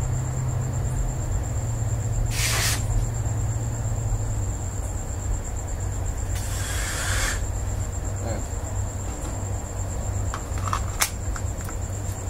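A few sharp clicks and two short hisses, each under a second, about two and six seconds in, while a CO2 airsoft pistol is handled and set up. Crickets trill steadily over a low hum.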